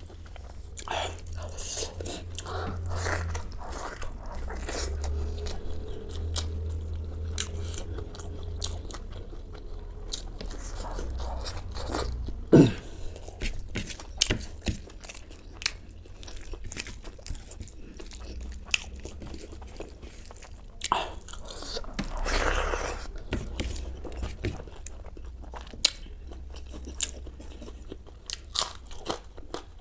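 Close-up mukbang eating sounds: a person biting and chewing crunchy food, with irregular crisp crunches and one louder bite about twelve seconds in.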